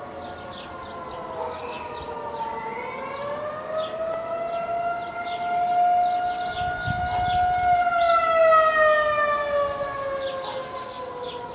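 Outdoor tornado warning siren wailing, one long tone that dips in pitch early on, climbs and holds, then slides down again, loudest a little past the middle.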